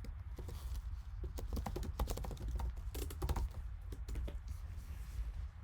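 Typing on a computer keyboard: runs of quick, light key clicks, busiest in the middle, stopping about four and a half seconds in.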